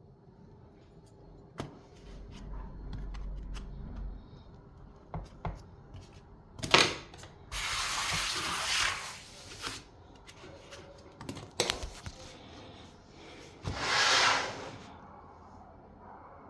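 Workshop handling noises: scattered clicks and knocks, then two loud bursts of spraying hiss, the first about two seconds long and the second shorter near the end.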